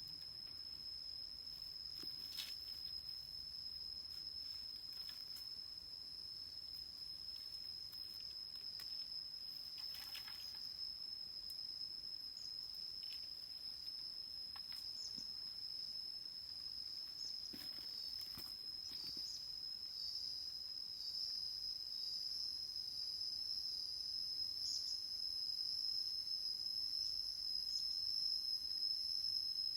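Insect chorus: a steady, high-pitched trill held without a break, growing slightly louder toward the end, with a few faint clicks.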